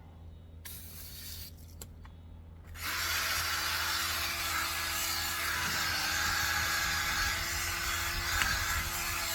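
Power drill spinning a wet drill brush against a car wheel rim, starting suddenly about three seconds in and then running steadily with a constant motor hum under the scrubbing.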